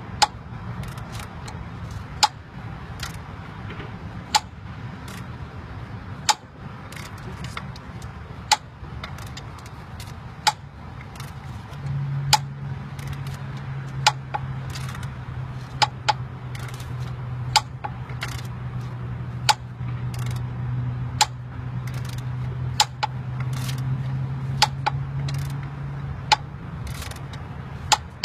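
Sharp metallic pops and clicks, one every second or two, from a pulley puller being tightened with a ratchet on a power steering pump pulley, the pulley working off the shaft a pop at a time. A steady low hum runs underneath through the middle of it.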